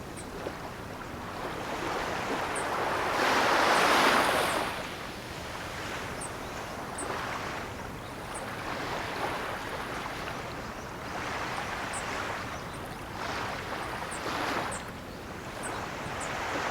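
Ocean waves breaking and washing in, in repeated surges. The largest wave comes about three to four seconds in, with smaller ones following every few seconds.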